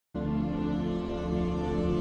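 New-age background music: a steady chord of held tones that starts a fraction of a second in.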